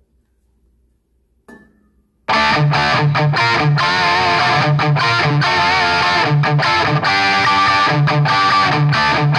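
Near silence, then about two seconds in, guitar music starts abruptly and plays on loudly.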